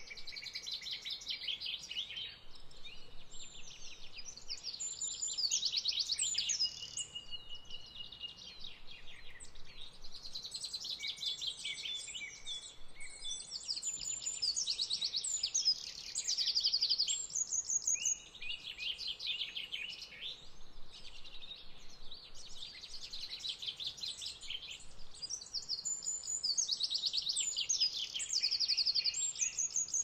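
Several woodland songbirds singing at once, their phrases overlapping: rapid high trills and clear whistled notes, one whistle held for about a second and a half around a quarter of the way in.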